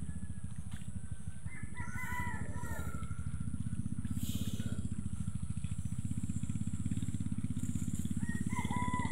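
A rooster crowing twice, about a second and a half in and again near the end, over a steady low rumble.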